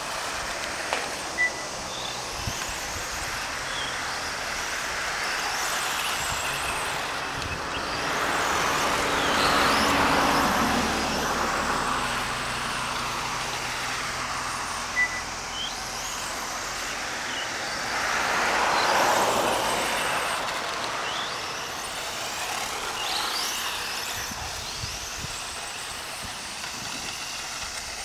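Electric motor of a 1/10-scale RC Formula 1 car whining as it laps the circuit, the pitch rising and falling with each burst of throttle, louder twice as the car passes close. Short high beeps sound about every 13 to 14 seconds.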